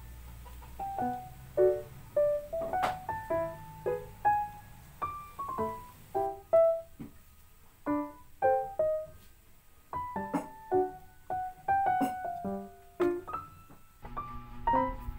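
Background music: a piano tune of separate notes, each ringing and then fading.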